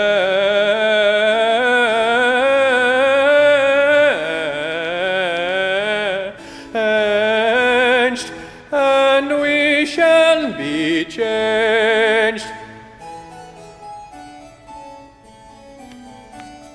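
Bass soloist singing a long run with vibrato on the word "changed" over keyboard continuo, with brief breaths about six, eight and ten seconds in. About twelve seconds in the voice stops and the harpsichord-like keyboard plays on alone, much quieter.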